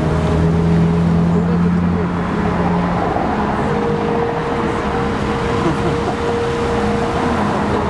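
A steady rush of the Bellagio fountain's water jets spraying and falling back into the lake, mixed with street traffic and the chatter of a watching crowd. A low held hum fades after the first few seconds.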